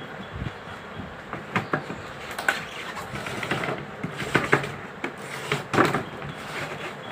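Hard plastic parts of a water purifier being handled and fitted together: irregular clicks and knocks, with a low thud about half a second in.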